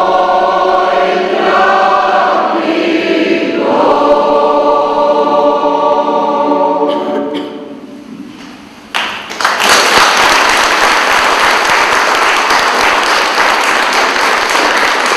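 Church choir singing in chords, the last chord held and fading out about seven seconds in. After a short pause the congregation breaks into applause, which continues steadily.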